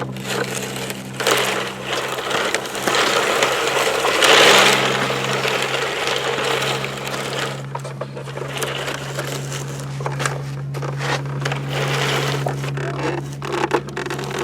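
Toy construction trucks scraping and rattling in dirt and sand, loudest about four seconds in, with scattered clicks and knocks later, over a steady low hum.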